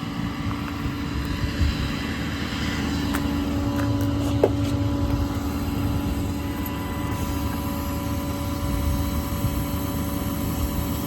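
Diesel truck engine running steadily at idle with a constant hum, from the 2011 Ford F550's 6.7 Power Stroke.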